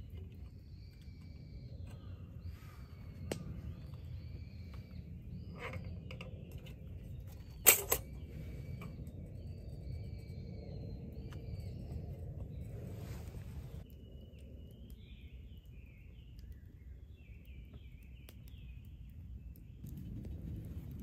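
Birds calling over a steady low outdoor rumble: short repeated whistled notes at first, then busier chattering calls from about two-thirds of the way in. Scattered light metal clicks from a tin hurricane lantern being worked and lit, with one sharp, loud click about eight seconds in.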